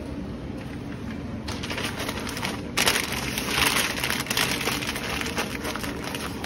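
Sheet of deli wrapping paper crinkling and rustling as it is folded around a cheesesteak sub. The crinkling starts about a second and a half in and gets louder about three seconds in, over a steady low hum.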